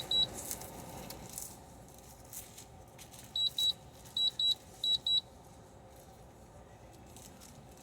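Electronic beeps, short and high-pitched: one right at the start, then three quick pairs in a row about halfway through.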